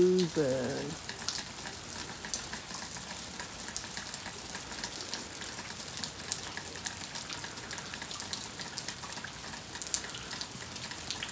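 Freezing rain falling, a steady crackling patter of many small drops ticking on ice-glazed branches and frozen ground.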